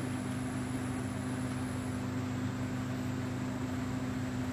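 Steady low background hum of several even tones with a faint hiss over it, like a fan or other running machine; no distinct handling sounds. A faint high whine stops about two seconds in.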